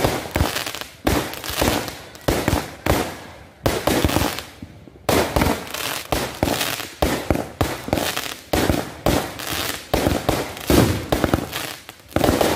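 Aerial fireworks launching and bursting in quick succession: a rapid string of sharp bangs, roughly one to two a second, each trailing off briefly.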